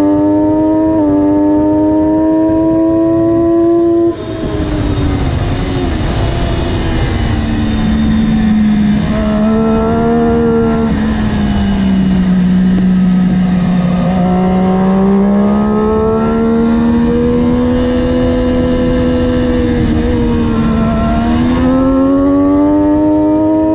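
Triumph 675R's inline three-cylinder engine at full throttle, rising in pitch, until the throttle shuts about four seconds in and the note drops with a rushing hiss under hard braking. The revs stay low through a slow corner, then climb steadily as the bike accelerates out, with a quick upshift near the end.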